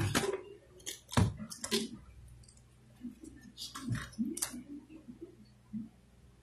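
Scattered sharp clicks and knocks of hard plastic as an electric paint spray gun is handled and moved into place, with no motor running.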